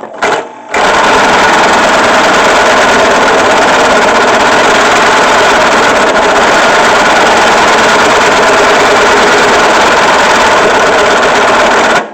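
Drill press boring through steel pipe under heavy load, the bit grinding and chattering in a loud, steady racket that sets in after a short burst and cuts off abruptly near the end. The press is labouring.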